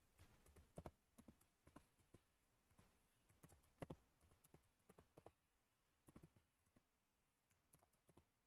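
Faint computer keyboard typing: irregular keystrokes in short runs with brief pauses.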